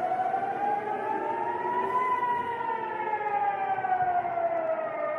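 Civil-defence air-raid siren wailing: its pitch rises slowly for about two seconds, then falls for about three.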